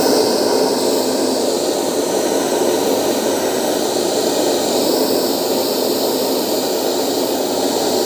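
Handheld electric hair dryer running steadily, a rush of blown air with a faint steady motor hum beneath it.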